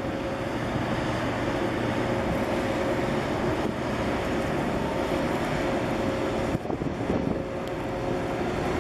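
Steady wind noise on the microphone over choppy harbour water, with a faint steady hum from a large container ship passing close by; the wind gusts roughly about two-thirds of the way through.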